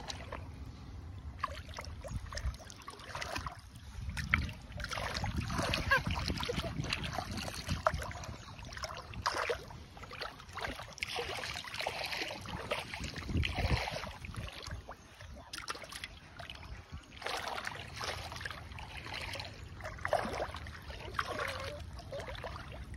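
Shallow water splashing and sloshing in irregular bursts as a person wades and grabs fish by hand, with a low rumble coming and going.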